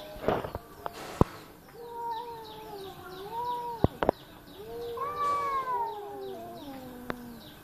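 Cats crying outdoors: two long, wavering yowls, the second rising and then sliding down to a low, drawn-out end. A few sharp clicks about one and four seconds in.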